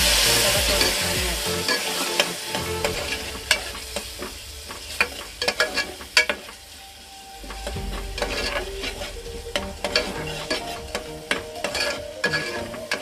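Steel ladle stirring and scraping onion-tomato masala frying in oil in an aluminium pressure cooker: sizzling, loudest at the start, with frequent sharp clicks of the ladle against the pot.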